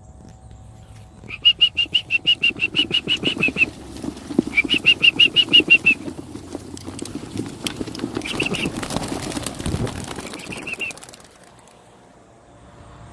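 A flock of racing pigeons released from a transport box, many wings flapping at once as they take off and climb away, the clatter fading after about eleven seconds. Early on, a rapid, even run of high chirps sounds twice.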